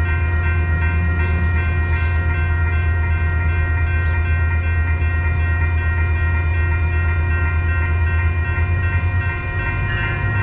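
Diesel locomotive of a train standing at the station, idling: a steady deep engine drone with a steady high whine over it. Near the end the engine note dips briefly and then settles a little higher.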